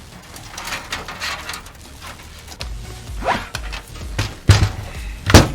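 Clicks, rattles and knocks of PC case parts and fan hardware being handled, with a short squeak about three seconds in and two loud knocks near the end.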